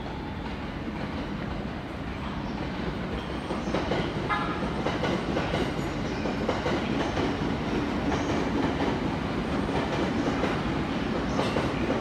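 A 15-car JR East local electric train rolling out of the station, its wheels clattering over the rail joints and growing louder a few seconds in, with a brief wheel squeal about four seconds in.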